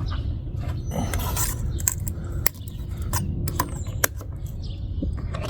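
Metal-edged putty knife scraping at the edge of a car's quarter window glass, with a handful of sharp clicks and ticks scattered through it over a steady low hum.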